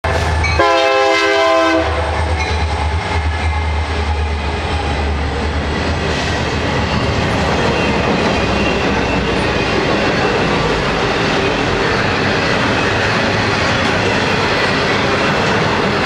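Union Pacific EMD SD70M diesel locomotive leading a freight train, sounding one short horn blast in the first two seconds. The locomotives' engine rumble passes and gives way to the steady rolling noise and clickety-clack of double-stack container cars.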